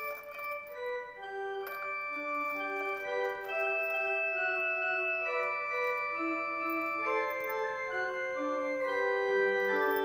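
C.B. Fisk Opus 139 pipe organ playing a slow passage of held chords, notes sustained a second or more and changing in overlapping lines, growing a little louder toward the end, in a large church.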